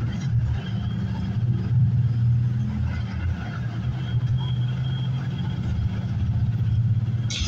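Engine and road noise of a moving vehicle heard from on board: a steady low drone, with a short hiss near the end.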